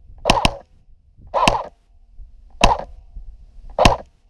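G&G Firehawk airsoft electric rifle fired in single shots: five sharp snaps, each with a short noisy tail. The first two come close together, then one about every second and a bit.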